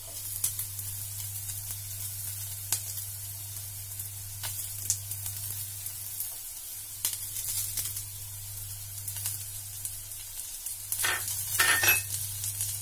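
Sliced onions and slit green chillies frying in a nonstick pan: a steady sizzle with scattered pops and crackles, over a low steady hum. A louder brief clatter comes near the end.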